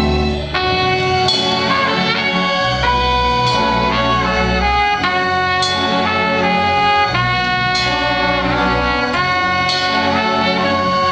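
Orchestra playing a slow film theme in sustained chords that change every second or two over held low bass notes.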